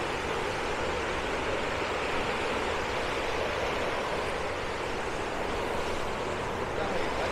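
Balason River rushing steadily, an even unbroken water noise.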